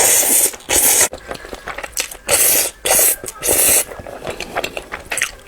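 Thick noodles being slurped, in about five loud short slurps with quieter gaps between them.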